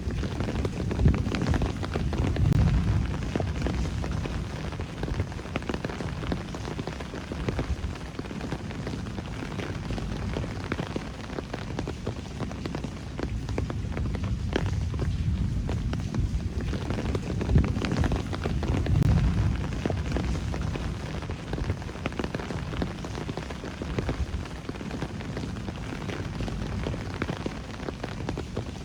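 Rain falling in a city at night: a steady hiss thick with close individual drop ticks. Two low rumbling swells rise and fade, about two seconds in and again around eighteen seconds.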